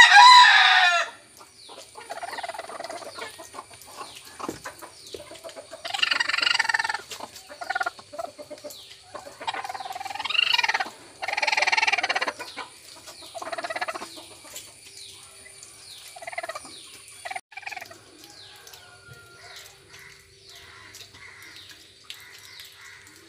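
Chickens calling loudly in a coop: a series of drawn-out, pitched calls, the loudest at the very start and a long pair around ten to twelve seconds in, with fainter calls and short high chirps in between.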